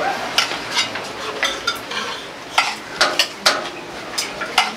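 Metal spoons clinking and scraping against cooking pots and plates as food is served and eaten, with short sharp clicks a few times a second.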